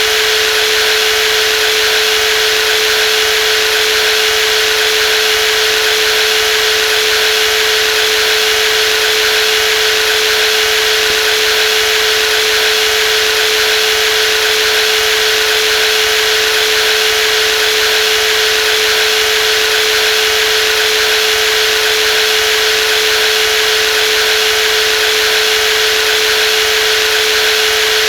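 Brushless jigsaw motor running steadily at constant speed, a continuous even whine over a steady hiss.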